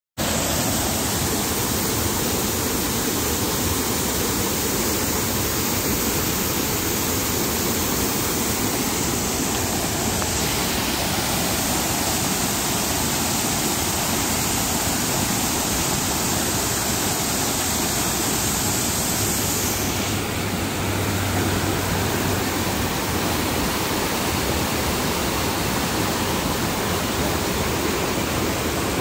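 River rapids: water rushing and tumbling over rocks in a steady, unbroken rush.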